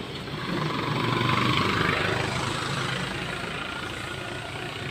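A motor vehicle passing along the street, its engine hum and road noise swelling about a second in and fading away.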